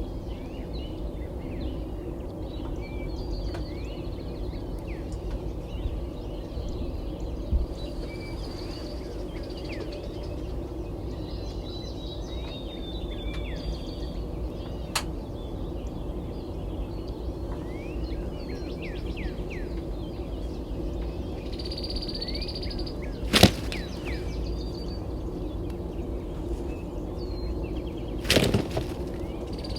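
Songbirds chirping and trilling in a morning chorus over a steady low background rumble, with a few sharp clicks or knocks, the loudest about 23 seconds in and another just before the end.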